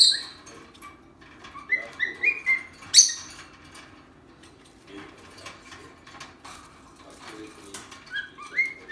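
Cockatiel whistling short rising notes in quick runs near the start and again near the end. A loud harsh burst comes about three seconds in, with soft chirps and clicks between.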